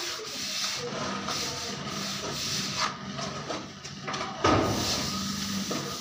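A flat steel plastering trowel scraping and rubbing over a plastered ceiling as it smooths the plaster, with one louder scrape about four and a half seconds in.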